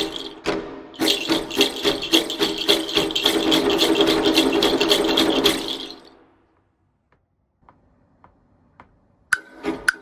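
A handheld percussion rattle shaken close to a studio microphone, a few separate shakes at first, then continuous shaking that fades out about six seconds in. After a near-silent gap, sharp wooden knocks from a tubular wood block begin near the end.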